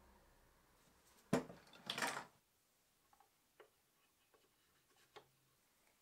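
Things handled on a wooden workbench cluttered with metal hand tools: a sharp knock about a second in, then a brief clatter, followed by a few light taps of small wood pieces being set in place.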